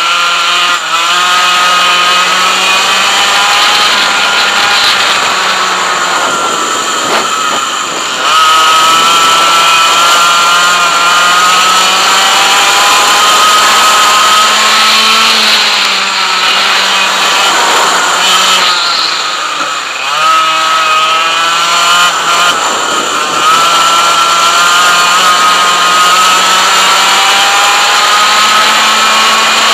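A 100cc two-stroke kart engine at full throttle, its pitch climbing steadily on the straights and falling away sharply twice as the kart brakes for corners, then winding back up.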